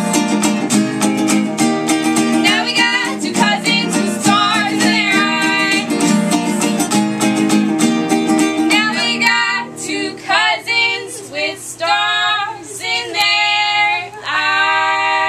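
Two women singing with a strummed ukulele and acoustic guitar. About nine seconds in the strumming stops and the voices carry on alone in short phrases, ending on a long held note.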